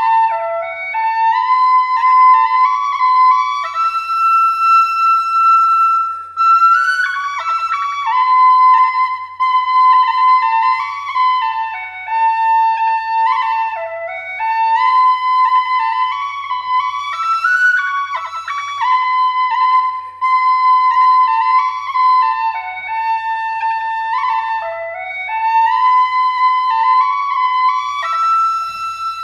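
Background music: a solo flute playing a melody of stepping and held notes.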